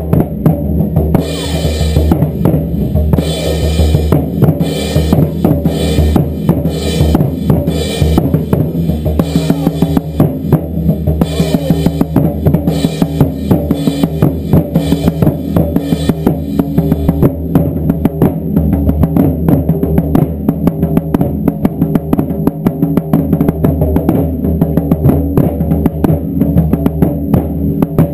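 Taiko ensemble drumming a fast, continuous beat of rapid strikes with a strong low end, and bright metallic accents over roughly the first sixteen seconds.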